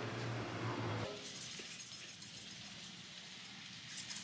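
A low steady hum for about the first second, then, after an abrupt change, the faint hiss and sizzle of pork buns steam-frying in a wide iron pan, with a brief crackle near the end.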